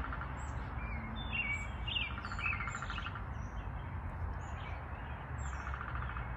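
Woodpeckers calling outdoors: two short rattling trills, one about two seconds in and a shorter one near the end, with other small birds chirping high over a steady low background noise.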